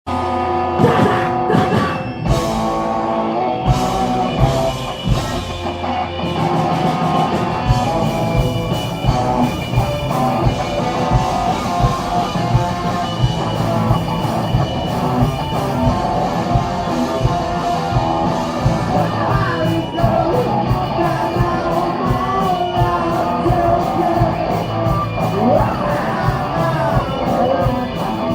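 Live rock band playing loud, dense music: electric guitars over a steady drum-kit beat, with bass.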